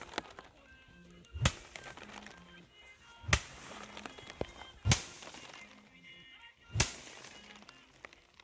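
Four heavy blows struck at a steady pace, one about every two seconds, each with a short crackling tail.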